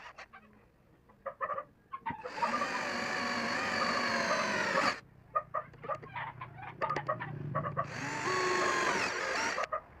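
Cordless drill boring a hole through aluminium plate in two runs, the first about two and a half seconds long, the second under two seconds. Each run is a loud, wavering, pitched whine, with light clicks and taps between them.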